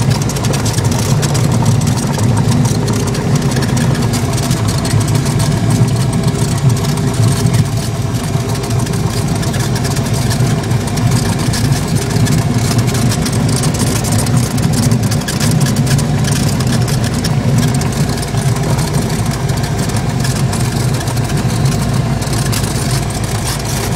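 A Cessna's single piston engine and propeller running steadily as the plane rolls on the ground after landing, heard inside the cockpit as a loud, even drone with rushing noise over it.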